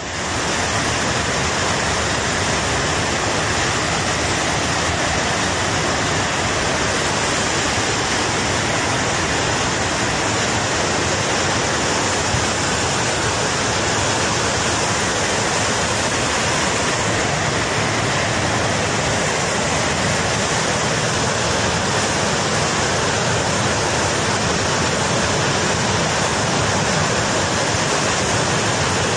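Muddy flash-flood water rushing and churning down a river channel, one steady, unbroken rush of water noise.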